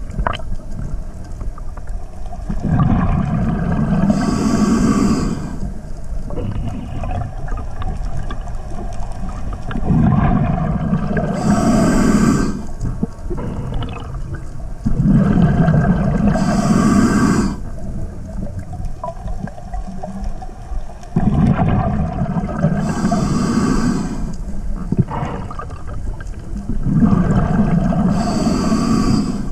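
Scuba diver breathing through a regulator underwater: five breaths, one every five to seven seconds, each a rush of rumbling exhaust bubbles ending in a hiss.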